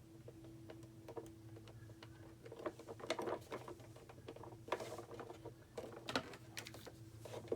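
Scattered light clicks, taps and rustles of plastic craft pieces being handled, over a faint steady hum.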